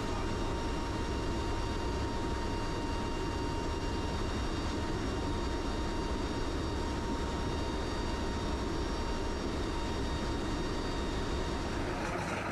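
Steady engine noise and wind rush inside a turboprop military transport plane's cargo bay with the rear ramp open in flight, with a thin steady whine above it. The sound changes abruptly near the end.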